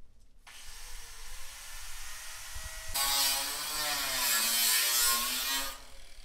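Electric power tool working a metal siding panel: the motor spins up with a rising whine about half a second in, then a louder, harsh whine whose pitch dips and recovers as it cuts, stopping shortly before the end.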